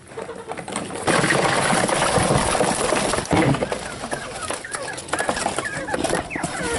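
Young quail chirping and scrambling inside a cardboard box while the box is handled, with the cardboard rustling. The rustling starts suddenly about a second in, and short chirps come repeatedly through the second half.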